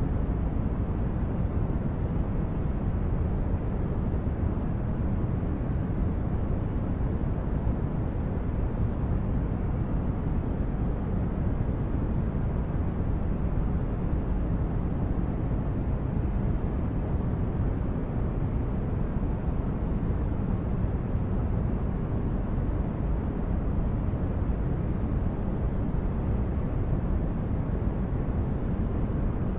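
Synthetic spaceship ambience: a steady low, brown-noise-like rumble of a starship's engine hum, even and unchanging throughout.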